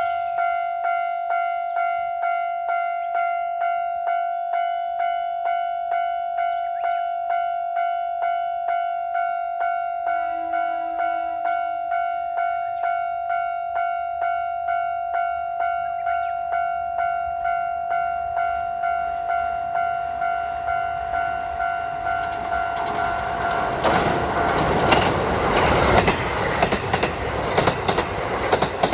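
Japanese level-crossing alarm ringing steadily, about two strikes a second, with a brief train horn about ten seconds in. From about twenty-two seconds in, a diesel express train crosses, its wheels clattering over the rail joints and growing loud enough to drown out the bell near the end.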